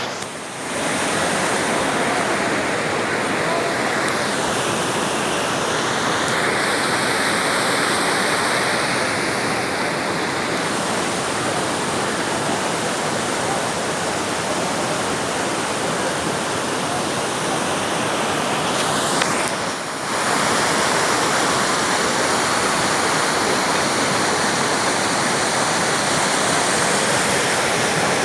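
Waterfall pouring steadily, a dense, even rush of falling water that briefly dips about two-thirds through.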